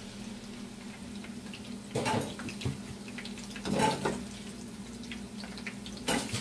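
Oil sizzling and crackling in a frying pan as string bean fritters (ukoy na sitaw) fry. Three brief louder clatters, about two, four and six seconds in, come from a slotted metal spoon working the fritters against the pan.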